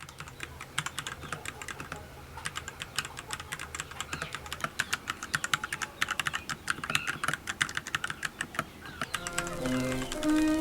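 Typing on a Royal Kludge RK61 mechanical keyboard: a fast, irregular run of sharp key clicks. Music comes in about nine seconds in and is louder than the typing by the end.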